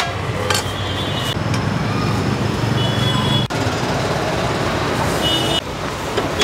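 Street traffic: a steady low rumble of passing vehicle engines, with a couple of brief high tones near the middle and near the end.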